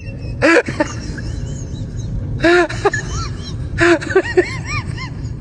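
Cat meowing repeatedly, with short rising-and-falling calls and three louder, harsher ones, over a steady low rumble.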